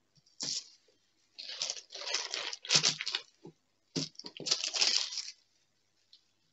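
Thin clear plastic film crinkling and rustling as hands smooth it down and lift it, in three stretches of a second or so with short pauses between.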